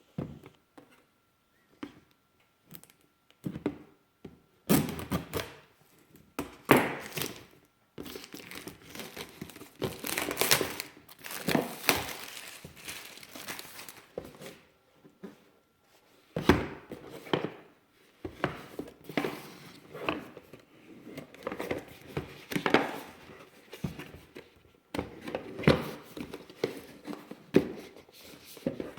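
Cardboard box and plastic packaging being opened and handled by hand: irregular crinkling, tearing and knocks, with short pauses between bursts.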